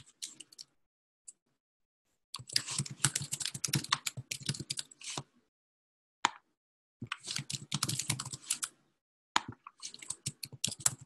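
Typing on a computer keyboard: three quick runs of keystrokes, with a few single clicks between them.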